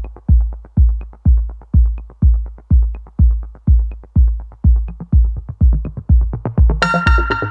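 Electronic background music: a deep drum-machine kick on a steady beat, about two a second, with a bright synthesizer melody coming in near the end.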